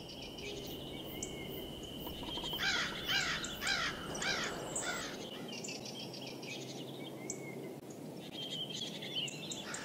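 Woodland ambience. A bird calls a quick run of about six rising-and-falling notes a few seconds in, over a steady thin high tone and a low, even background hiss. Fainter calls come near the end.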